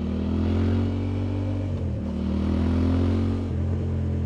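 Aprilia Tuareg 660's 659 cc parallel-twin engine pulling as the motorcycle accelerates on the road. The engine note drops with an upshift about two seconds in, climbs again, then drops with another upshift near the end.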